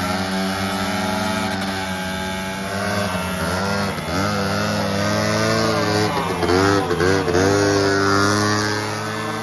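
Two Polaris Predator 90 two-stroke quad engines running at idle, with several quick throttle blips a little over six seconds in, the loudest part.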